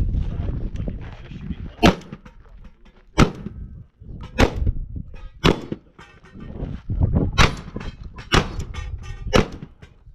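Shotgun fired in a string of about seven shots, roughly one a second with a brief pause in the middle, each a sharp crack with a short echo.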